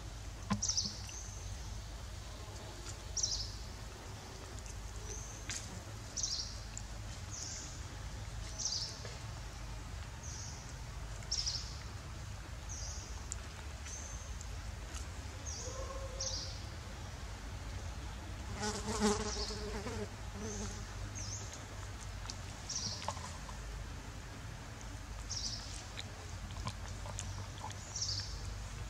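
A short, high-pitched chirp repeating every second or two, irregularly, over a steady low rumble. About two-thirds of the way through comes a single louder, lower-pitched call lasting about a second.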